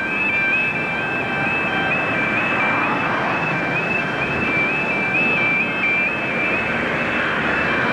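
Level crossing audible warning alarm warbling between two high tones, stepping up and down a few times a second, sounding while the crossing's red road lights flash to warn that a train is approaching. Car engines run close by underneath it.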